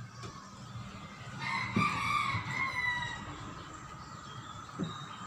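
A rooster crowing once, a single long call of about a second and a half beginning about one and a half seconds in.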